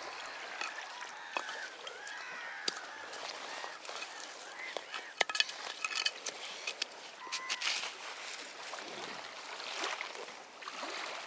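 Waterside ambience: water lapping and sloshing, a few short bird calls, and a cluster of sharp clicks and knocks about halfway through as fishing tackle is handled and tied off.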